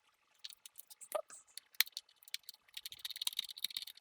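Light clicks and taps of the GoPro Karma drone's plastic arm and body parts being handled and fitted together, with a faster run of ticking from a small hand screwdriver near the end.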